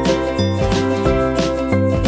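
Instrumental background music: a melody of high notes over a bass line that moves in a steady rhythm.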